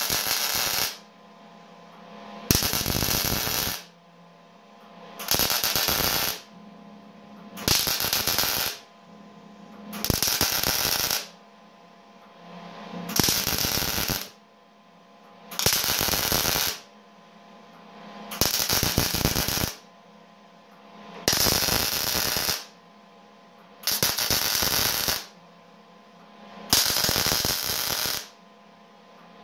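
Eastwood MIG 175 welder laying short MIG tack welds on a steel grate. There are about eleven welds, each a crackling arc about a second long, one every two and a half to three seconds, with a steady low hum in the gaps between them.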